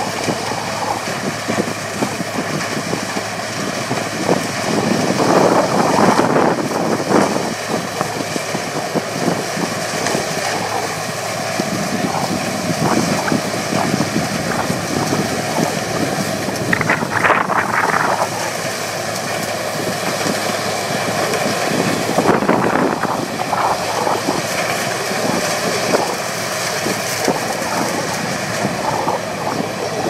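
Sugar cane combine harvester running as it cuts cane: a loud, continuous mechanical din, with a tractor engine working alongside and louder surges now and then.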